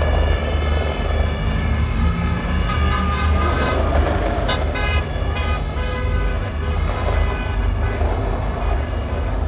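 City street traffic: a steady low rumble of vehicles, with pitched car-horn tones sounding over it.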